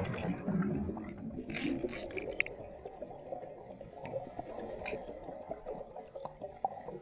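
Muffled pool water heard underwater, with scattered bubbly clicks and pops, slowly growing quieter.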